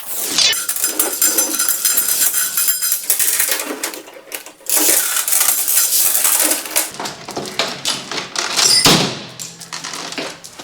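Steel parts and tools clanking and ringing, a rapid metallic clatter with ringing tones, and a loud knock about nine seconds in.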